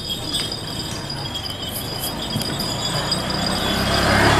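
Small bells jingling with light metallic clinks, while a low rumble grows louder near the end.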